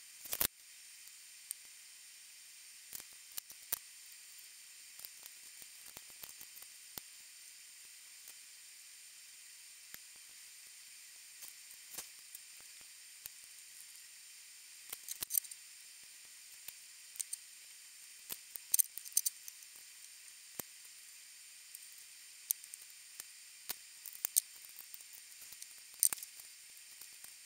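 Small repair tools working on an opened iPhone 6: scattered light clicks and taps over a faint steady hiss.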